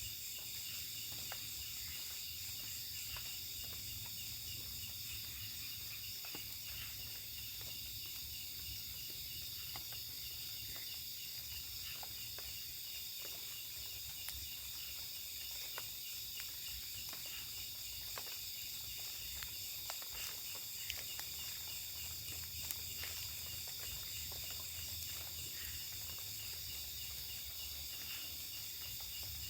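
Night chorus of crickets and other insects, a steady high-pitched trilling in several layers, one of them pulsing rapidly, with a few faint clicks and a low hum underneath.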